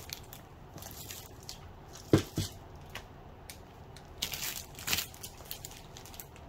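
Clear plastic packaging crinkling and rustling as it is handled, with two quick knocks about two seconds in.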